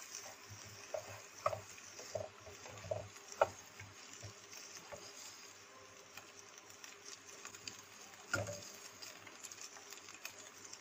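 Slotted spatula scraping and tapping against a nonstick frying pan as scrambled egg is scooped out, with scattered soft clicks and two sharper knocks.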